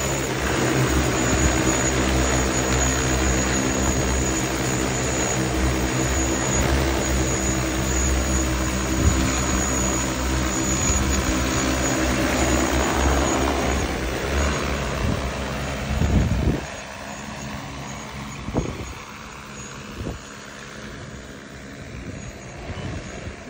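DJI agricultural spraying drone hovering low, its rotors giving a loud, steady multi-toned drone. About sixteen seconds in the sound falls much quieter.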